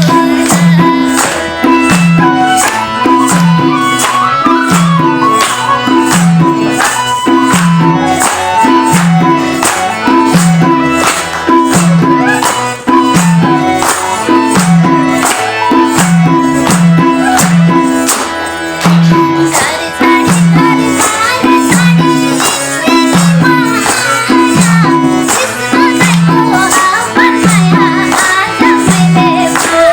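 Nepali folk music: a steady, repeating hand-drum rhythm with jingling percussion and a melody line over it.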